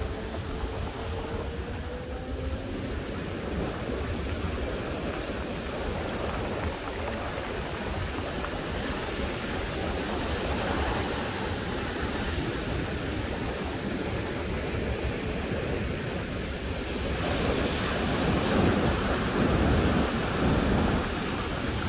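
Ocean surf breaking and washing up a sand-and-cobble beach in a steady rush. It swells louder about halfway through and again near the end as bigger waves wash in.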